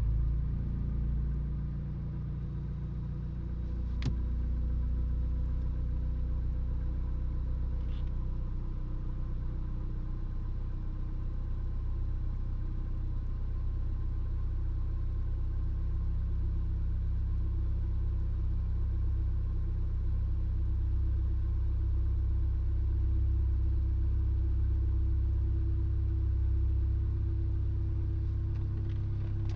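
Car engine idling at a steady level, a sound its owner says comes with hiccups and misfiring at idle.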